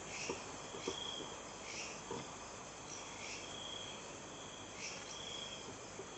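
Faint insect chirping: short high trills recurring every couple of seconds, with a few soft clicks.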